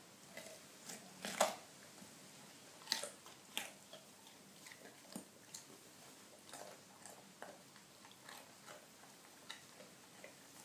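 Dog chewing a carrot: irregular crisp crunches, several loud ones in the first few seconds, then smaller, quicker chews.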